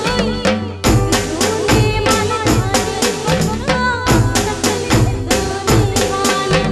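Background music with a fast, steady drum beat under a melody.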